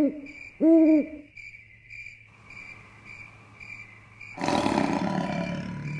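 Two owl-like hoots in the first second over steady cricket-like chirping, about two chirps a second. About four and a half seconds in, a loud rough roar lasts a second and a half.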